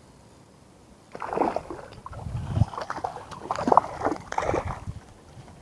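A hooked trout thrashing at the water's surface, splashing hard and irregularly as it is drawn to the landing net. The splashing starts about a second in.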